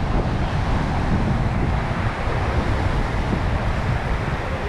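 Wind buffeting the microphone, a steady low rumble, over the noise of surf on the shore as the sea settles after a storm.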